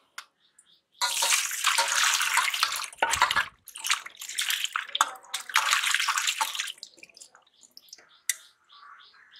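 Water sloshing and splashing in a stainless steel bowl as hands rub and wash shelled snail meat. The splashing starts about a second in, comes in uneven bursts with short pauses, and grows faint for the last couple of seconds.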